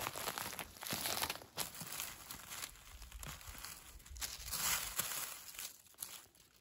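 Dry fallen leaves crackling and rustling in irregular bursts as the leaf litter is walked on and brushed aside by hand.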